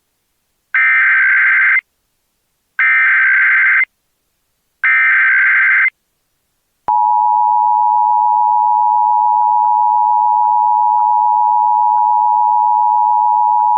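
Emergency Alert System signal: three one-second bursts of the SAME digital header, a warbling data tone about a second apart, then the steady two-tone attention signal (853 and 960 Hz) starting about seven seconds in.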